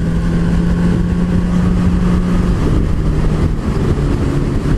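MV Agusta Brutale motorcycle engine running at steady cruising revs, heard from the rider's seat with a constant rush of wind and road noise. The engine note drops slightly about two and a half seconds in as the revs ease off.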